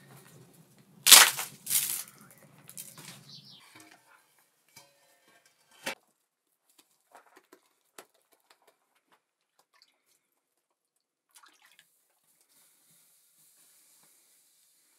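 Hands slapping and patting a ball of Berber bread dough: two loud, sharp slaps in the first two seconds and a few softer ones after, then only scattered faint taps and clicks.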